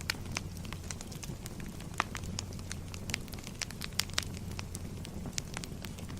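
Campfire crackling: irregular sharp pops and snaps, several a second, over a steady low rumble of the fire.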